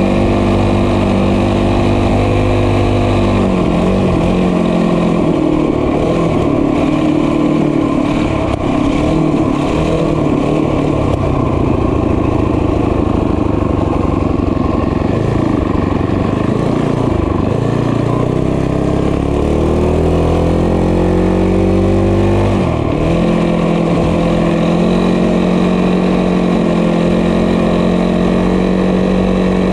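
Small motorbike engine running under way, its pitch rising and falling with the throttle, dipping sharply about 23 seconds in and then holding steady.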